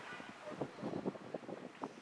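Wind buffeting the microphone, a steady hiss broken by irregular short thumps and rustles.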